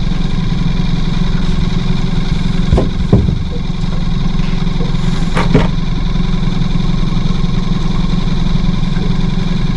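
A boat's outboard motor idling steadily, with a few short knocks of handling about three seconds and five and a half seconds in.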